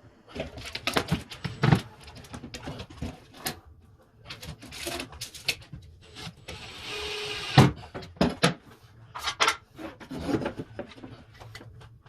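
A series of sharp knocks, clicks and scrapes from hands handling and fitting hard parts while mounting a fire alarm. A rushing hiss lasts just over a second, about six to seven seconds in.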